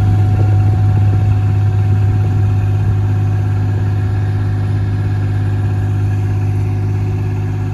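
Engine of crack-filling equipment running at a steady speed, a low even hum that eases off slightly toward the end.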